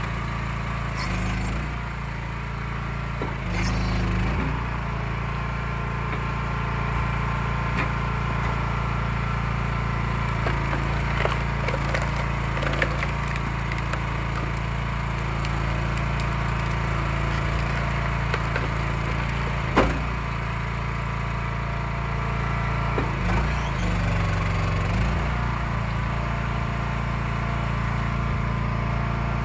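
Small gasoline engine of an Eastonmade 12/22 hydraulic log splitter running steadily, its pitch shifting briefly under load a few times as the ram cycles. Occasional sharp cracks of wood splitting, the loudest about twenty seconds in.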